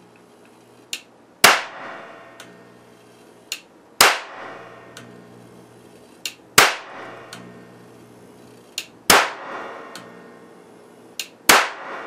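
A 6400 V, 70 µF capacitor bank discharging into an old CRT monitor circuit board: five sharp, loud cracks about two and a half seconds apart, each with a short ringing tail. A smaller click comes about half a second before each crack, and a low hum sounds between shots.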